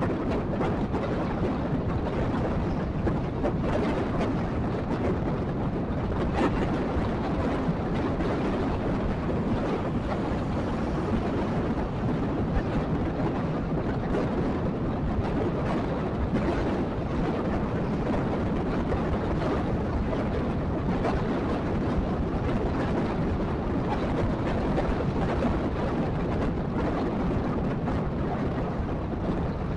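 Steady wind rush on the microphone and low road rumble from a riding motorcycle, with no break or change.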